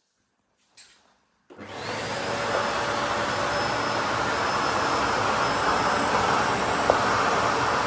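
A Bosch BGS21X320 bagless vacuum cleaner switched on about a second and a half in. Its motor quickly comes up to a steady full-power rush with a faint high whine, and there is one sharp click near the end.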